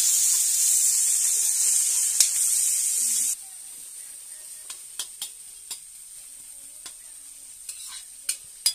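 Sliced onions frying in hot oil in a black iron kadai, sizzling loudly. About three seconds in, the sizzle drops suddenly to a quieter frying hiss, with a metal spoon scraping and clicking against the pan several times.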